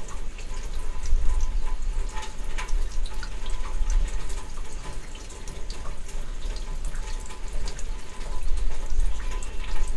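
Summer rainstorm: rain falling steadily, with many separate drops splashing and dripping close by, over a low rumble.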